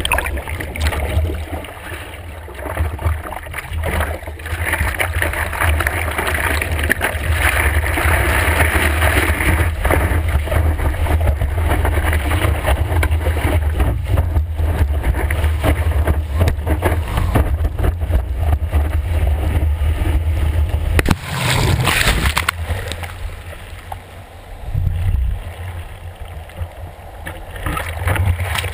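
Seawater rushing and splashing over a surfboard as it is paddled and ridden on a wave, heard through a GoPro mounted on the board's nose, with a heavy low rumble of water against the camera housing. The rushing eases for a couple of seconds about three quarters of the way through, then picks up again.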